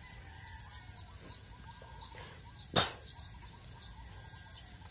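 Quiet outdoor ambience with faint, distant bird calls, broken by a single sharp click about three seconds in.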